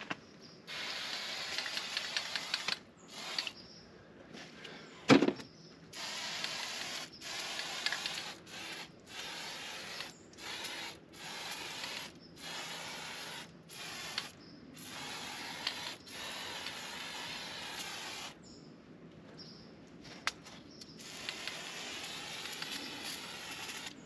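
Aerosol can of Fluid Film rust preventive spraying in about a dozen short bursts, some under a second and some one to two seconds long, with brief pauses between them. A single sharp knock about five seconds in is the loudest sound.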